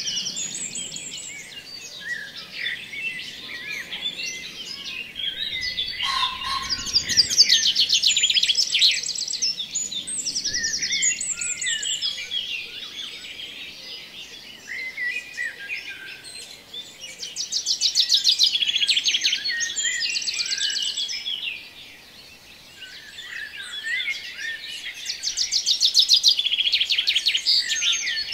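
Several songbirds singing together: a busy mix of high chirps and quick trills, with a fast trill swelling up loudest three times.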